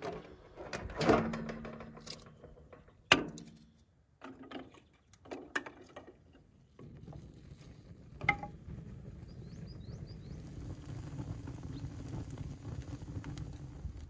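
Split firewood logs knocked and dropped into a metal grill trough, with a few sharp wooden knocks, the loudest about three seconds in. From about halfway on, a wood fire burns with a steady crackle.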